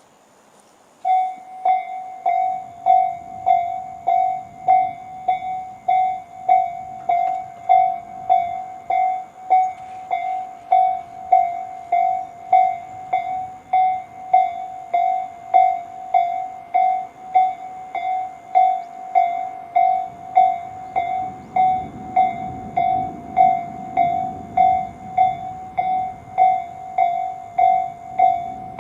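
Japanese railway level-crossing alarm on the Tobu Nikko Line starting up about a second in, the slow-tempo Tobu 'sound C' type: an electronic ding struck about one and a half times a second, repeating evenly. In the second half a train's low rumble comes up under it.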